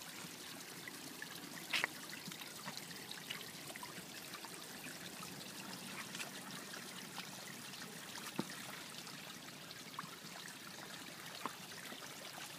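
Steady trickle of water from a small spout falling into a shallow stone channel, with a few short clicks, the sharpest about two seconds in and another about eight seconds in.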